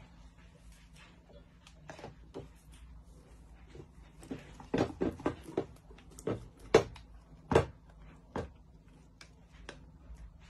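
Kitchen utensils knocking and tapping against a plastic blending beaker as the cheese mixture is knocked and scraped off: a string of sharp, separate knocks, coming thick and fast around the middle.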